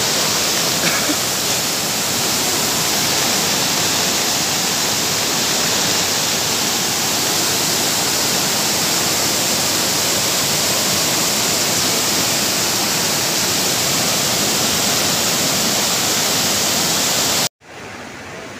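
Muddy floodwater in spate rushing down a concrete channel and over steps: a loud, steady hiss of turbulent water. It cuts off sharply near the end and comes back much quieter.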